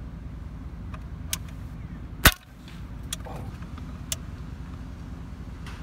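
A single sharp crack of a pellet air rifle fired from the truck's window about two seconds in, over the steady low rumble of the idling truck. A few faint clicks come before and after the shot.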